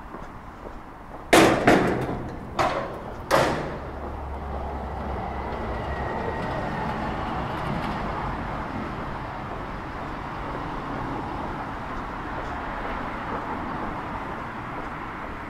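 Four loud bangs in quick succession within the first few seconds, like heavy slams. Then steady city street background noise, with a low rumble for a few seconds after the bangs.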